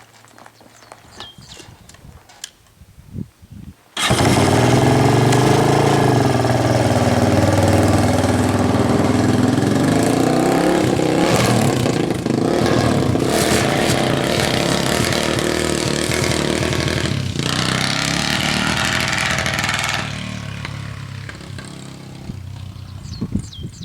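Yamaha Raptor 660 quad's single-cylinder four-stroke engine running on a test run. The engine comes in suddenly about four seconds in, after a few clicks. It then runs loud and steady and gets quieter a few seconds before the end.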